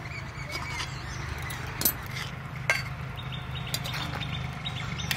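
Two sharp clinks of a metal spatula against a metal pot of fish curry, about two seconds in and a little under a second apart, over a steady low hum, with birds chirping faintly in the background.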